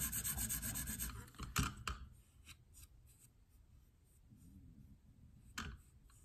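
A 300-grit diamond stone on a KME guide rod rubs quickly back and forth along a steel knife edge and stops about a second in. A few light knocks and a single click near the end follow as the knife clamp is handled.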